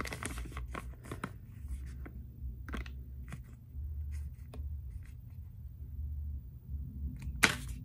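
A shiny foil packet crinkling as it is handled and turned in the hands: scattered short crackles, with one louder crackle near the end.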